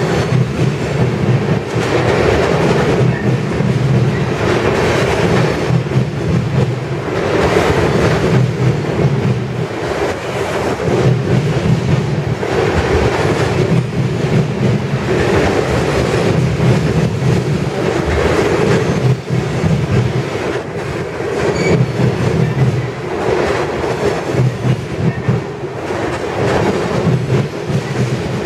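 A freight train's tank cars rolling past: steel wheels clattering over the rail joints in a clickety-clack, with a rumble that swells every two to three seconds as each pair of trucks goes by.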